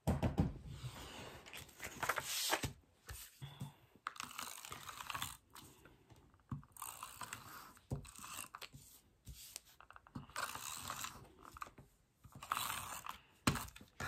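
Handheld glue tape runner pressed and drawn across card stock in a series of short strokes, its dispensing mechanism clicking and rasping, mixed with the rustle and slide of card being handled.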